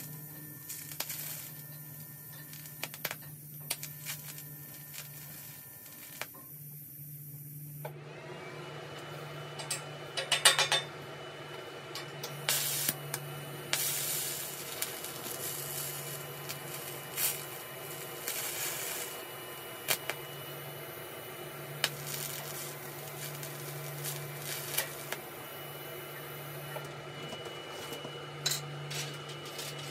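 Electric welding arc on a steel chain link: a steady buzz broken by irregular sharp crackles and ticks.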